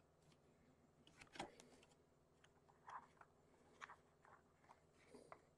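Near silence broken by a few faint, irregular clicks and taps: a thin plasticard sheet being handled and set against a plastic model carriage body.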